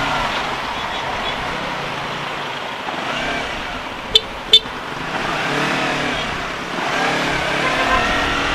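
Motorcycle engine running and revving up and down several times while riding through dense traffic, over steady road and traffic noise. Two short sharp sounds come close together a little after four seconds in.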